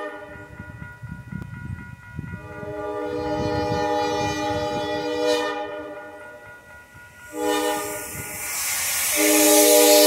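Diesel locomotive's multi-note chord horn sounding in long blasts, with short breaks about seven and about nine seconds in, and loudest at the end as the train with its snow plow reaches the crossing. A rushing hiss grows from about seven and a half seconds in as the plow comes up.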